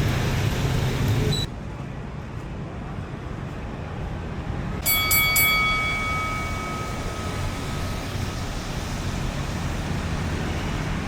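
Street ambience with a low traffic rumble. A loud rushing noise cuts off suddenly about a second and a half in. About five seconds in, something metal is struck a few times in quick succession and rings out, fading over several seconds.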